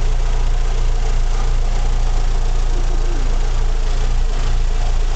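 Fiat Palio 1.3 16V four-cylinder engine idling steadily on a homemade PIC-based sequential fuel-injection ECU.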